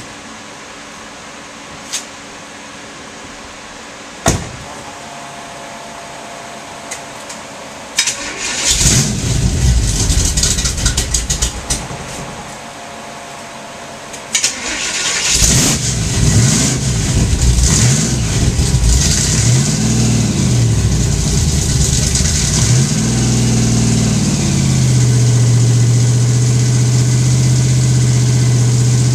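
Supercharged small-block Chevy V8 in a pro-street Nova cold-starting: after a single knock, the starter cranks for about four seconds without the engine catching. On a second try it fires, its revs rise and fall several times, then it settles into a steady idle.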